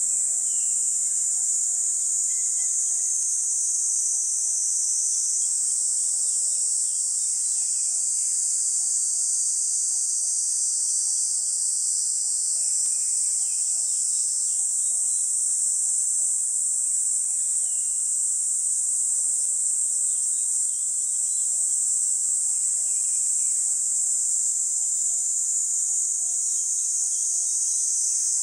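A steady, high-pitched chorus of summer insects buzzing without a break, with a few faint short bird chirps now and then.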